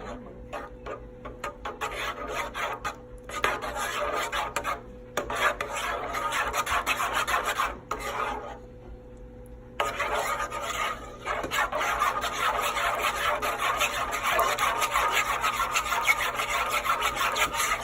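Block of Colby cheese being grated on a grater, with rapid repeated rasping strokes that pause briefly twice.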